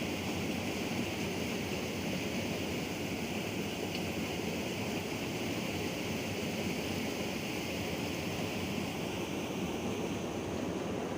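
Steady rushing of flowing water in a small river, an even noise with no breaks.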